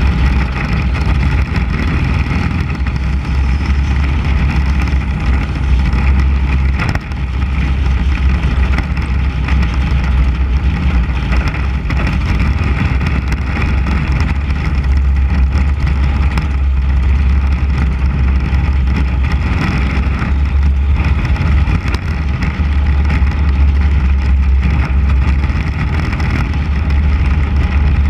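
A 600 cc Mini Cup race car's engine running hard lap after lap, heard from a camera mounted on the car's hood: a loud, steady drone with road and wind noise over it. The level dips briefly about seven seconds in.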